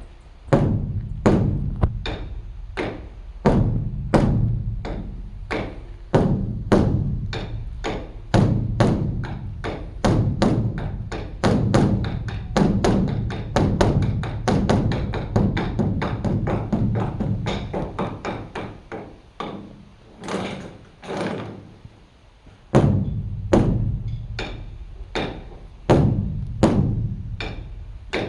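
Beopgo, the large Buddhist temple drum, beaten with sticks in a fast, irregular rhythm of booming strokes and sharper raps. There is a brief lull about three-quarters of the way through, then the drumming picks up again.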